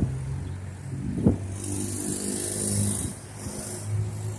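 Road traffic: a vehicle engine's steady low hum, with a high hiss that swells about a second and a half in and fades after about two seconds. Two short knocks, one at the start and one about a second later.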